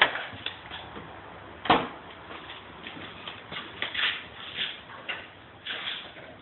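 A series of irregular knocks and clicks, the loudest about two seconds in, over a faint hiss.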